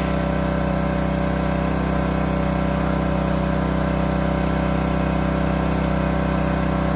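Westinghouse 3200 PSI gas pressure washer's small engine running steadily at a constant speed while the wand sprays soapy water with a hiss.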